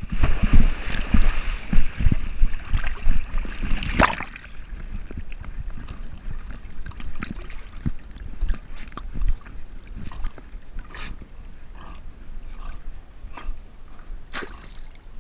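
Water splashing and sloshing close to a camera worn by a swimming dog. The splashing is heavier for the first four seconds, ending in a sharp hit, then turns to lighter irregular lapping, with another sharp splash near the end.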